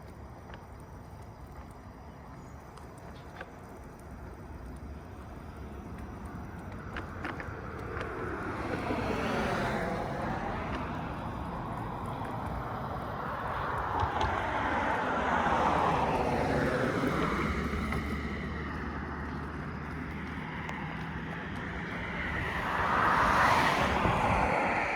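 Street and road noise heard while riding an electric unicycle, with wind on the microphone. Three louder swells, at about ten, sixteen and twenty-three seconds in, sound like vehicles passing.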